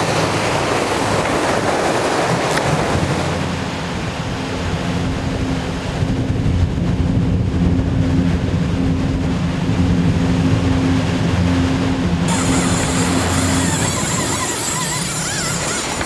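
A boat's engine drones steadily under wind buffeting the microphone and water rushing past the hull. The engine hum is strongest through the middle, and the wind hiss comes back sharply near the end.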